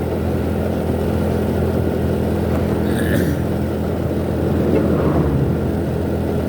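Motorbike engine running steadily at road speed with road noise, large trucks and buses in the traffic around it. A short higher-pitched sound about three seconds in.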